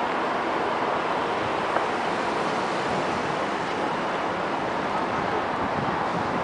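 Airbus A330-300's Rolls-Royce Trent 700 turbofan engines on final approach to land, a steady rushing roar with no distinct tones.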